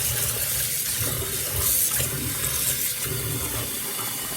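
Tap water running steadily into a pot of rice at the kitchen sink as the rice is rinsed to wash out the starch.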